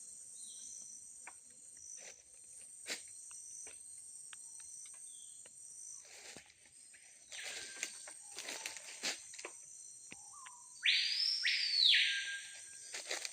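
Tropical forest ambience: a steady high-pitched insect chorus with scattered clicks and rustles. A fainter hissing buzz comes about seven seconds in, and a loud one comes about eleven seconds in and lasts under two seconds; the later buzz is the loudest sound.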